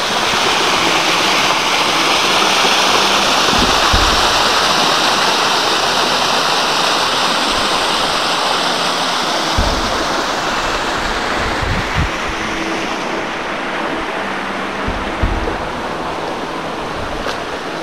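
Small mountain waterfall splashing down a rocky slope close by: a loud, steady rush of water that grows slightly duller over the last few seconds.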